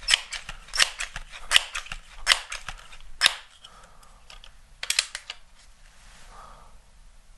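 Crosman 1322 .22 multi-pump pneumatic pellet pistol being pumped up: about five sharp strokes of the pump lever, roughly one every 0.8 s, then a short cluster of clicks about five seconds in and a lull before the shot.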